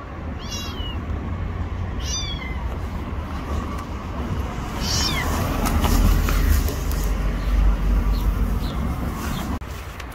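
A cat meowing three times, short high-pitched calls that fall in pitch, over a low rumble that grows louder in the second half.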